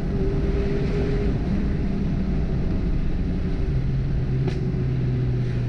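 Ford Fiesta ST's turbocharged engine running as the car is driven, its pitch falling in steps as the revs drop, with one short sharp crack about four and a half seconds in. The owner says the engine has too much misfire.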